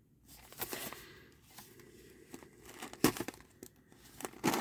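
Rustling and crinkling as a trading card hobby box is handled, with sharper crackles about three seconds in and again near the end.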